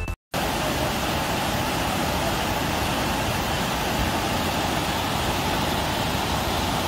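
Muddy floodwater torrent rushing through a washed-out road crossing: a steady, even rush of water noise that starts a moment in.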